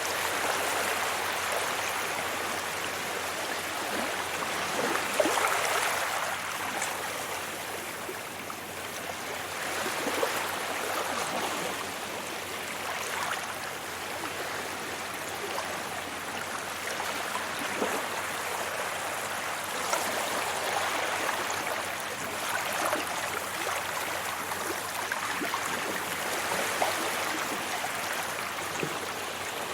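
Sea waves washing onto a beach: a continuous rush of water that swells and ebbs every few seconds.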